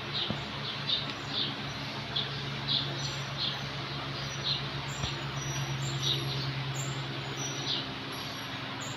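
Small birds chirping in short repeated calls, about one or two a second, over a steady low hum that grows louder from about three seconds in. A couple of faint clicks are also heard.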